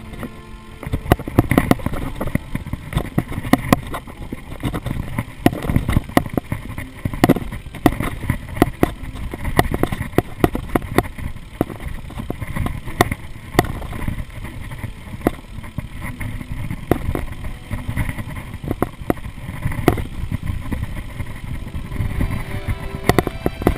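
Mountain bike rolling fast down bare rock: a steady low rumble of wind on the microphone and tyres on stone, with frequent sharp knocks and rattles from the bike jolting over bumps.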